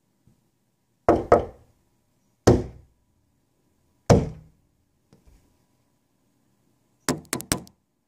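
Sharp knocks on a hard surface close by: a quick double knock, two single knocks a second and a half apart, a faint tap, then a fast run of about four knocks near the end.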